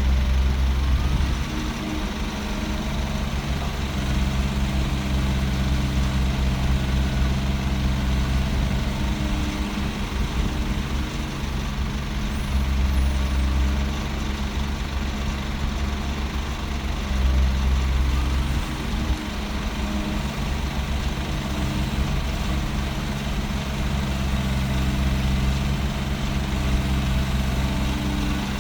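Heavy diesel engine of construction machinery running steadily, its low rumble swelling briefly a couple of times.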